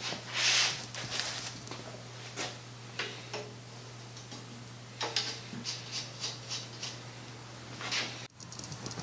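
Hand-tool work on a cast-iron sewing-machine treadle base: a scrape just after the start, then scattered metal clicks and a quick run of light ticks midway as a wrench works the frame's nuts, over a steady low hum.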